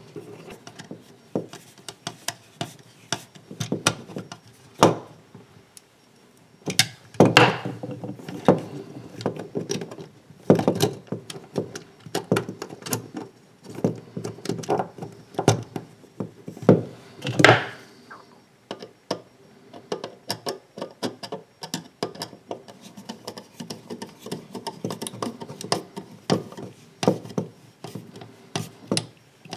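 Handling noise from wiring a plastic cooker control switch plate: stiff copper cable cores being bent and pushed into its terminals, with scattered clicks, taps and knocks of the plastic faceplate and wires, louder in a few clusters. Near the end a screwdriver is set to a terminal screw.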